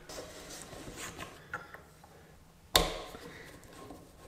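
Hand tools being worked on a motorcycle engine while the spark plug is taken out: faint clicks and scrapes, then one sharp knock about three seconds in.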